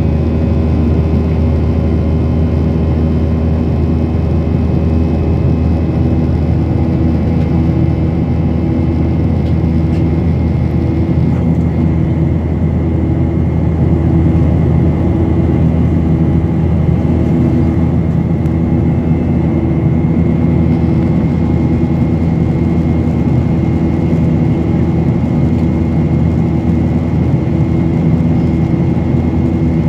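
Steady cabin noise of a Boeing 737-800 in flight, heard inside the cabin from a window seat over the wing: a constant low drone and rush from its CFM56-7B engines and the airflow, with a few steady hum tones in it.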